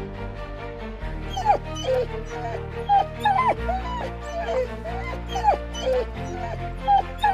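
A dog whimpering in short, high, falling cries, about two a second, starting about a second in, over background music.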